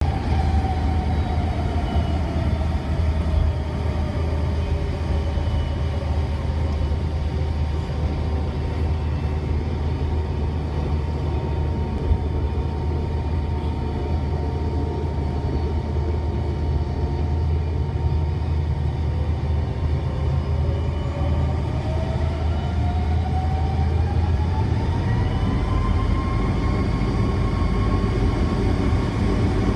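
Delta MD-90 cabin sound of the rear-mounted IAE V2500 turbofans over a steady low rumble. The engine whine drops and holds steady, then about two-thirds of the way through rises smoothly and levels off higher as the engines spool up toward takeoff thrust.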